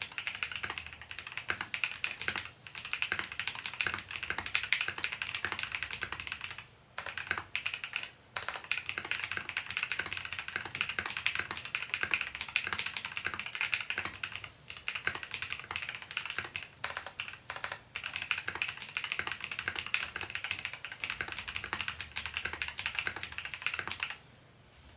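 Fast continuous typing on a custom 60% mechanical keyboard with lubed Feker Holy Panda tactile switches on an aluminium plate, the keystrokes clacking steadily with a few brief pauses, stopping about a second before the end.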